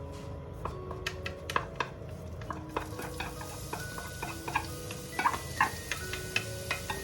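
Food sizzling in a pan with a steady hiss, while a utensil gives sharp clicks and knocks against the pan, loudest around five seconds in; light chiming background music plays over it.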